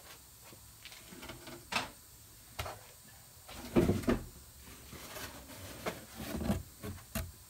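Scattered knocks and rustles of objects being handled, the loudest a cluster of thuds about four seconds in, then a large cardboard box being brought in and set down on a wooden workbench near the end.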